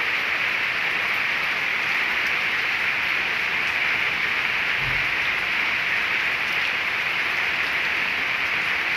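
Steady rain falling on wet brick paving and tree leaves: a dense, even hiss.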